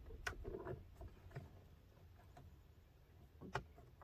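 Faint handling of a plastic interior door trim piece being lined up by its tabs, with two sharp clicks, one just after the start and one about three and a half seconds in.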